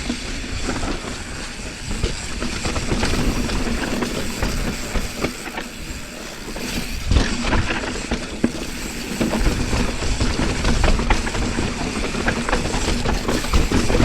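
Mountain bike descending a rough dirt trail: a steady rumble of tyres over dirt and rock, with frequent clicks and knocks from the bike rattling over bumps.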